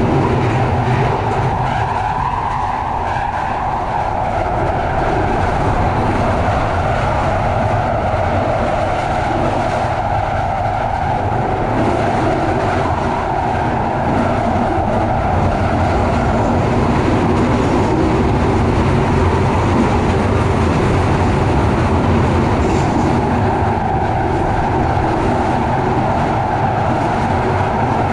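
Victoria line Underground train running through its tunnel, heard from inside the carriage as a steady, loud rumble of wheels on rails.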